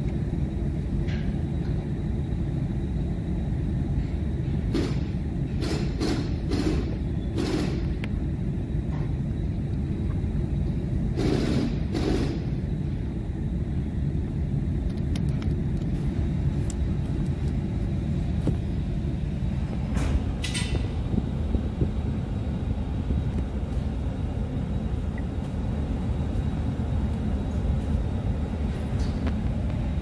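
Steady low rumble of the vehicle cabin, as with the engine running, with several short clicks and rustles from plastic USB connectors being handled and plugged together.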